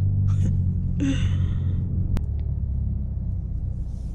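Mazda3 engine through its muffler-deleted exhaust, heard from inside the cabin: a steady low drone that loosens into a rougher rumble about halfway through. A breathy exhale comes about a second in, and there is a single sharp click near the middle.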